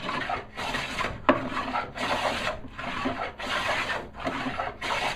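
Stanley No. 5 jack plane taking light smoothing strokes along a walnut board, each stroke a short hiss of the blade cutting a thin shaving, about two strokes a second with brief gaps between.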